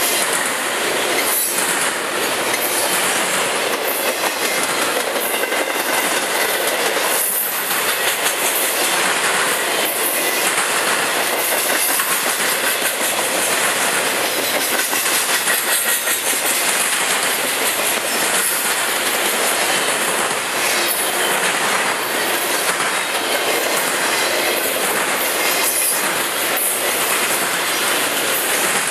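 Double-stack intermodal freight train's loaded well cars rolling past at speed: a loud, steady rush of steel wheels on rail with a run of clicks as the wheels cross rail joints.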